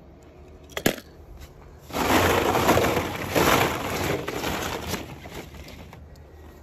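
A die-cast toy car clicks once as it drops into a plastic bowl. About a second later a hand rummages through a bin of small plastic balls, a loud clattering rustle that lasts about three seconds and fades out.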